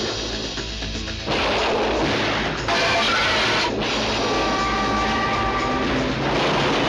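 Film trailer soundtrack: music mixed with loud action sound effects such as booms and crashes. The sound gets suddenly louder about a second in and again near three seconds in, with held tones over a dense rumble.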